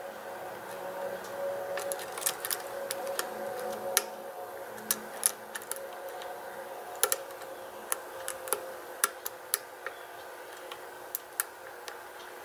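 Small, irregular clicks and light scrapes of a lock pick probing and setting the pins of a pin-tumbler lock held under tension with a tension wrench.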